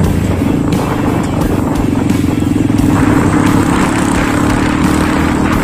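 Small motorcycle engine running steadily at cruising speed, heard from on the moving bike, with a constant rush of wind and tyre noise on a gravel road.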